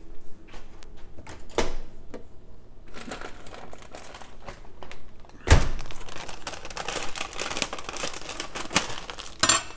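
A plastic microwave steam bag of corn crinkling as it is handled, with a single sharp knock about halfway through.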